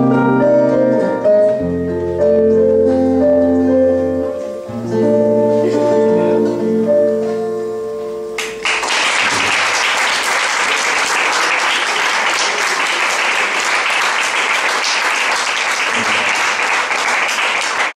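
The last held notes of a live song on a plucked string instrument, then audience applause that starts suddenly about eight and a half seconds in and continues steadily.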